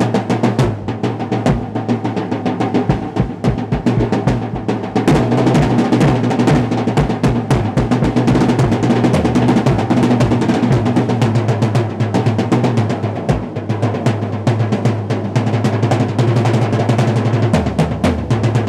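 Acoustic drum kit played in a fast, continuous solo: dense rolls and strokes on the snare and toms, with bass drum kicks throughout.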